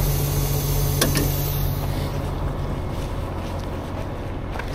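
Heavy diesel truck engine idling with a steady low hum, with a light click about a second in; the hum eases a little about two seconds in.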